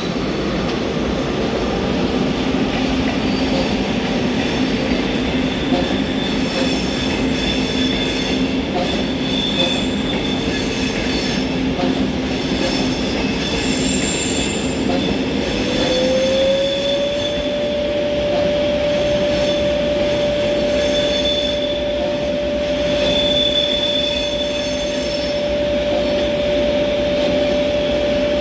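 A train moving close by on the station tracks, with a steady loud rolling noise. A whine in it glides up in pitch about halfway through, then holds at the higher note.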